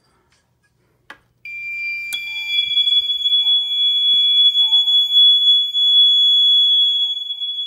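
Fire alarm system going into alarm as the System Sensor 2151 smoke detector is tripped: the alarm horns sound continuously rather than in a pulsing pattern. One steady high-pitched tone comes in about a second and a half in, and a louder, higher tone joins half a second later.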